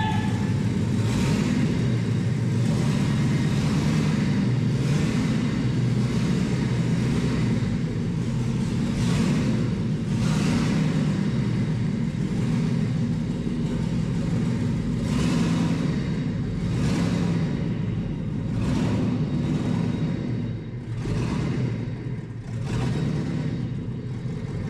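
Cab-over ramp truck's engine running with a steady low rumble as the truck pulls slowly away.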